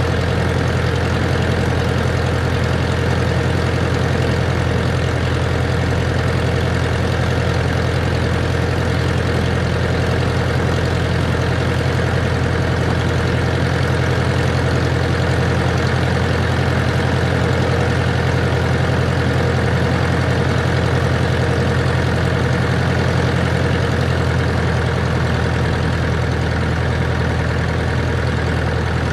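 A Cessna 140's four-cylinder Continental engine and propeller running at a steady, unchanging pitch in level flight.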